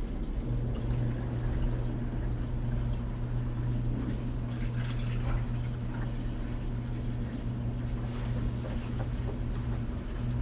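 Hitachi SF-150TCV washing machine running with a steady low hum while water pours into the tub, as it adds water partway through its spin program.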